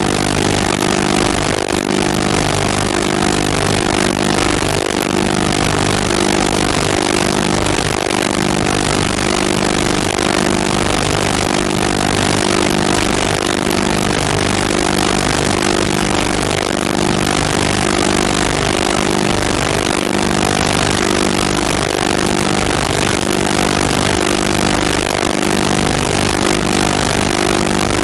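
A loud, steady, engine-like mechanical drone with hiss over it, unchanging in pitch and level throughout.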